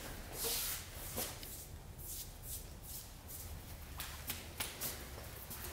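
Footsteps on a tile floor: a quick, irregular patter of soft steps, busiest about four seconds in.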